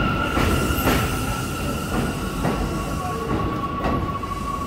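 New York City subway train rolling past, its wheels squealing in a steady high tone that steps slightly lower about two seconds in, with several sharp clacks as the wheels cross rail joints.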